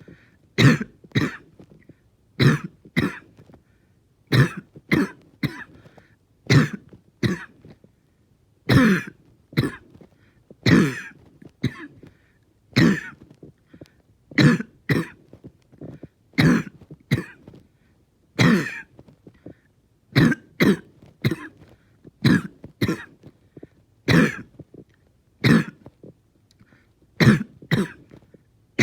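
A person in a long, painful coughing fit, coughing over and over, the coughs coming singly and in pairs about once or twice a second without letting up.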